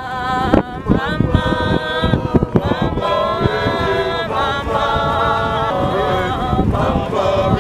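Several voices singing together in held, changing notes, over low rumbling noise.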